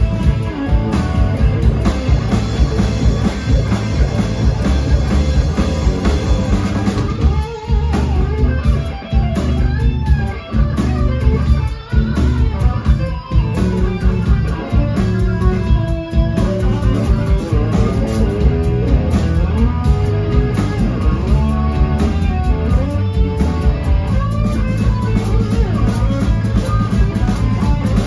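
Live blues-rock trio playing without vocals: electric guitar lead lines with bent notes over bass guitar and drum kit, with a few short breaks in the band around the middle.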